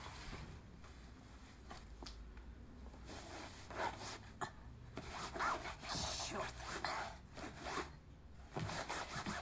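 Stretched canvases on wooden frames being tilted forward and leafed through one after another: rubbing and scraping of canvas, with a few light knocks of the frames.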